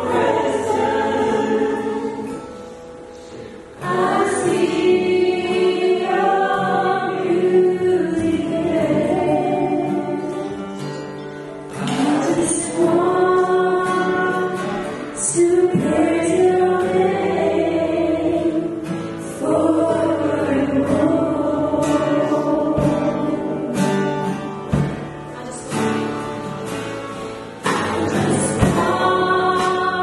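Group of voices singing a Christian worship song, in long sung lines with short breaks between them.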